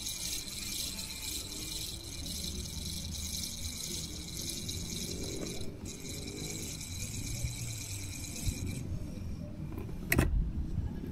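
Spinning reel being wound steadily to retrieve a spinner lure, a fast fine whirring tick that pauses briefly about 6 s in and stops near 9 s. A single sharp click follows about a second later.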